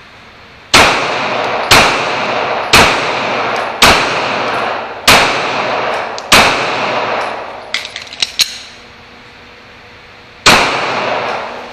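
Glock 17 9mm pistol firing seven shots, six at roughly one-second intervals and a seventh after a pause of about four seconds, each crack ringing out in a long echo in an indoor range. A few light clicks come between the sixth and seventh shots.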